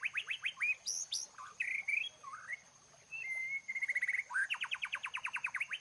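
A songbird singing a fast series of short falling notes, about seven a second. Near the middle it breaks into a few varied chirps and a short trill, then the fast series starts again.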